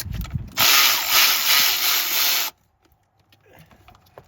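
Cordless 3/8-inch electric ratchet (Milwaukee M12 Fuel) running for about two seconds, spinning out an ignition coil pack bolt. It starts and stops abruptly, after a few light handling knocks.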